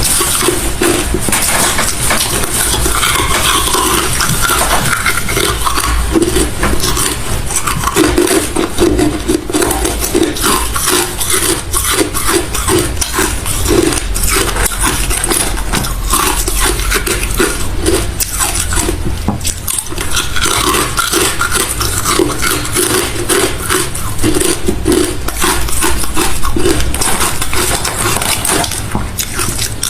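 Hard refrozen crushed ice being bitten and chewed close to the microphone: a dense run of loud, irregular crunches and cracks.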